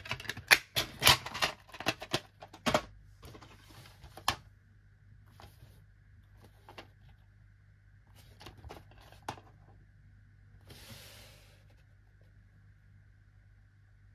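Black plastic DVD case being handled: a quick run of sharp plastic clicks and snaps in the first three seconds as a disc is pressed onto the case's centre hub. After that come scattered lighter clicks and a brief rustle about eleven seconds in as another case is picked up and turned over.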